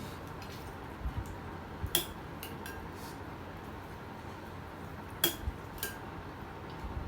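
Utensils clinking against plates during a meal: two sharp ringing clinks about three seconds apart, with a few fainter ticks and soft knocks between them.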